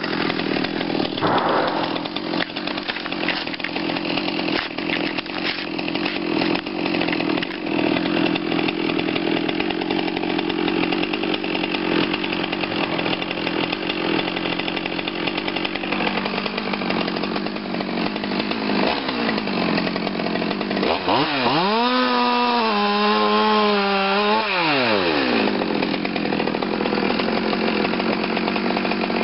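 Two-stroke chainsaw running at a steady low speed, then revved up about 21 seconds in, held high for a few seconds and let back down. Near the end the running chain cuts into a cut-protection work glove lying on a log.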